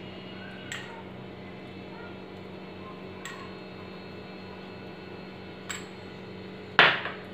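A spoon clinking against the cream bowl and the kadai as cream is added to simmering curry: a few light clicks and one louder knock near the end, over a steady low hum.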